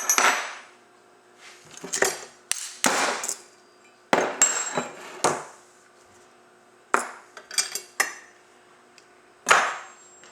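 Metal clutch parts and hand tools knocking and clinking against each other and the workbench, about eight sharp hits with brief metallic ringing, some in quick pairs, while a snowmobile drive clutch is being taken apart.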